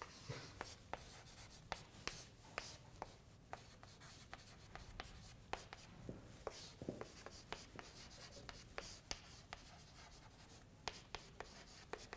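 Chalk writing on a blackboard: faint, irregular taps and short scrapes as an equation is written out stroke by stroke.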